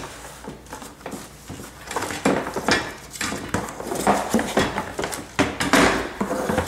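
Handling noises from a mandoline slicer and its packaging: irregular knocks, clicks and rustles as the heavy slicer and its parts are moved about.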